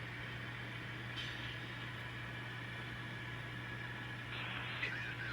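N scale model train rolling slowly over the layout's track: a steady low motor hum with light wheel noise, and a few faint squeaks near the end.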